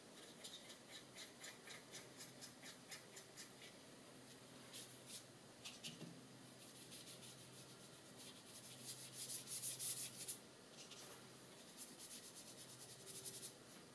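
Faint scrubbing of a watercolor brush, first working water into the red cake of a watercolor pan set, then stroking red paint onto paper in many short, quick strokes. The strokes are busiest about nine to ten seconds in.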